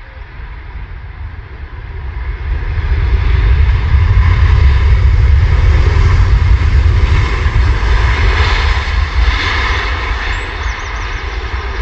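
Airbus A350-900 airliner's Rolls-Royce Trent XWB jet engines roaring during the landing rollout just after touchdown. The sound builds over the first few seconds, is loudest as the aircraft passes, and eases a little near the end.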